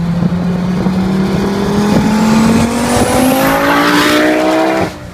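Audi 200 20v's built turbocharged 2.3-litre five-cylinder accelerating hard past on a flyby, its revs climbing steadily with a thin high whine rising alongside. The note swells loudest as the car goes by and then drops away abruptly near the end.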